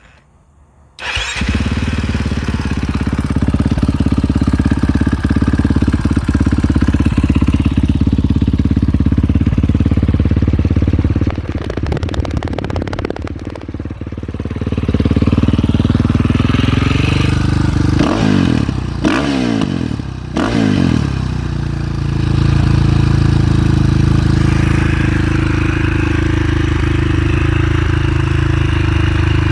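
2019 KTM 500 EXC-F's single-cylinder four-stroke engine starting about a second in and idling through an FMF 4.1 exhaust. A few quick throttle blips come past the middle, then it settles back to a steady idle.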